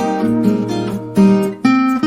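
Background music: acoustic guitar playing a melody of plucked and strummed notes.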